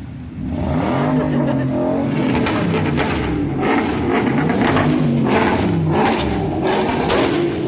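A car with a loud exhaust driving past, its engine revving up and down several times.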